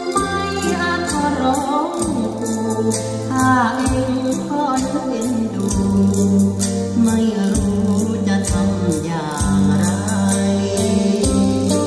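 A song played through a hi-fi system: white bookshelf speakers driven by a Bryston B135 integrated amplifier. A solo voice sings with gliding, wavering pitch over a steady bass line and a regular rattling percussion beat.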